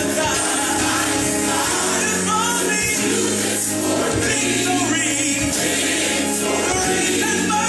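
Gospel music: a choir singing with instrumental backing.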